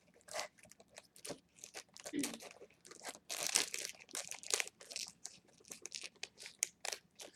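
Plastic film and wrapper of a trading-card pack crinkling and tearing as it is pulled open, in quick irregular rustles with a longer, louder stretch about three seconds in.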